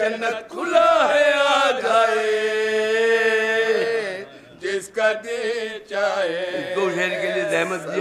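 Men's voices chanting an unaccompanied Shia mourning lament, a lead voice with others joining in. About two seconds in they hold one long note; there is a brief break just after the four-second mark before the chanting resumes.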